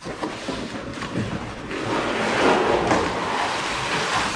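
Packaging rustling as it is handled, a steady noisy crinkle that grows louder about two seconds in.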